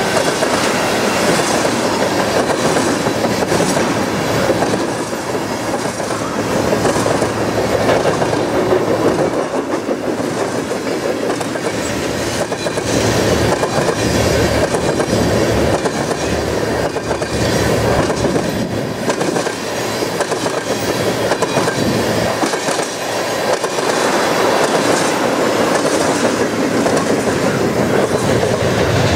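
A freight train's cars rolling past at speed, first tank cars and then boxcars and autoracks, making a steady, loud noise of wheels on rail.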